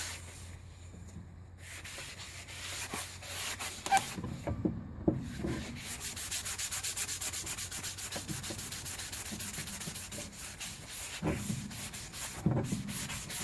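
Fine sanding sponge rubbed back and forth along a bare hickory axe handle in quick, even strokes, smoothing the wood after coarser 100-grit sanding. The strokes break off twice briefly in the first five seconds.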